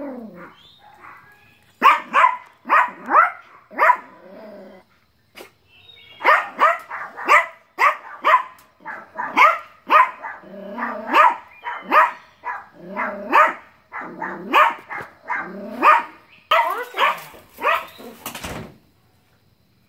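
Yorkshire terriers barking in rapid, high-pitched yaps, about two a second, with a short pause early on and a brief burst of rustling noise near the end.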